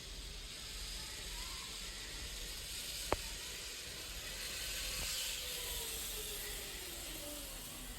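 Zipline trolley pulleys running along the steel cable: a steady hiss with a faint whine that slowly falls in pitch, and one sharp click about three seconds in.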